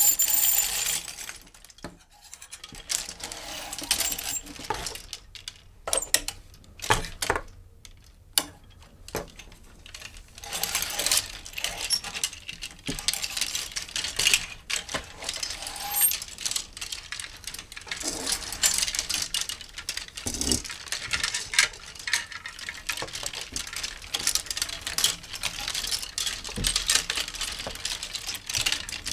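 Clothes hangers sliding along a rail: repeated scrapes, clicks and clinks as they are pushed and knock against one another, in irregular bursts.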